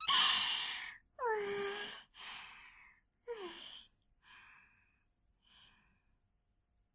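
A young woman's voice catching her breath after laughing: about six sighing exhales, some with a little voice in them, each quieter than the last, dying away about a second before the end.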